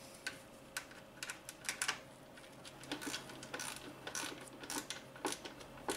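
Hand ratchet with a 7 mm socket clicking in short, uneven strokes as it drives the coolant reservoir's mounting screw; faint scattered clicks.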